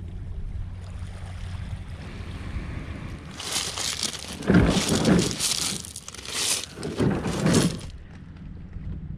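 Plastic sit-on-top kayak hull scraping and grinding over beach pebbles as it is dragged ashore by its handle, in several loud crunching surges from about three seconds in to near the end, with footsteps crunching on the pebbles. Before it, a steady low hum.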